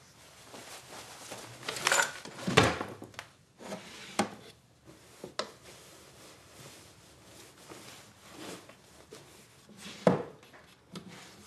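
Wooden dresser drawer being handled: a few sharp wooden knocks and scrapes as it slides in its runners, with cloth rustling as clothes are stuffed inside, and a knock near the end as the drawer is pushed shut.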